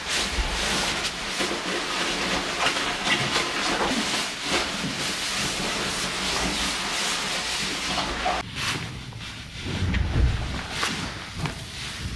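Strong wind blowing against a mountain hut, a steady rushing hiss, with the rustle of gear being handled close by. About eight seconds in, the hiss eases and a low rumble of a gust rises.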